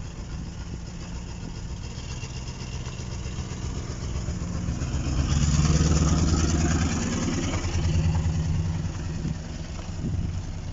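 1960 Plymouth Belvedere's engine running as the car drives, its leaking exhaust blowing. The engine note swells louder for a couple of seconds around the middle, then settles back.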